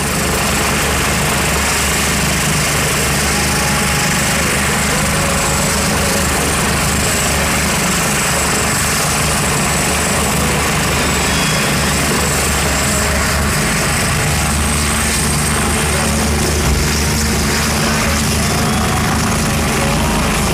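Eurocopter EC145 rescue helicopter running on the pad with its rotor turning: a steady deep rotor and engine rumble under a high turbine whine. The whine rises slowly in the second half as the helicopter powers up and lifts off.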